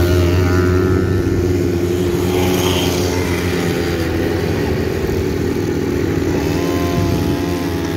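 Quad bike engine running steadily near at hand, its pitch rising briefly near the end as it is revved.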